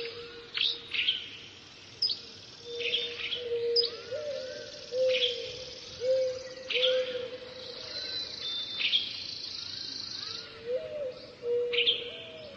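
Birds calling: many short, sharp chirps that drop in pitch, over a lower call repeated about once a second.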